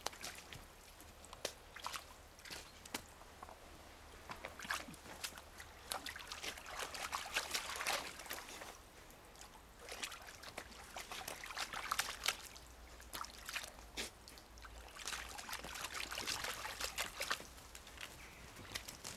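Old English Sheepdog puppy lapping and splashing pond water with its muzzle, in irregular bouts of small splashes.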